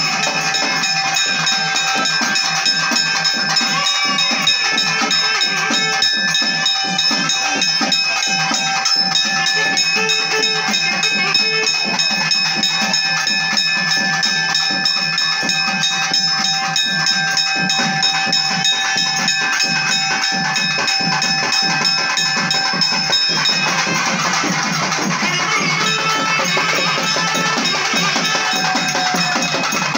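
Live festival drumming: fast, continuous drum strikes under a steady held high tone, which stops about three-quarters of the way through while the drumming carries on.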